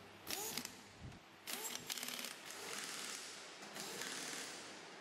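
Pneumatic air wrench running down cylinder-head bolts on a 200cc rickshaw engine: a short burst about a third of a second in, a second burst around a second and a half in, then a longer run of the tool.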